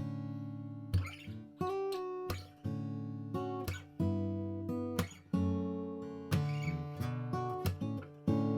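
Martin D-18 mahogany dreadnought acoustic guitar being strummed: full chords struck one after another, each ringing on between strokes, loud and clear.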